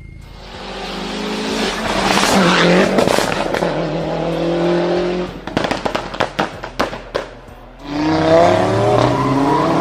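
Car engine revved hard and held, then a rapid string of sharp exhaust pops and crackles as the throttle is closed, then revved hard again near the end.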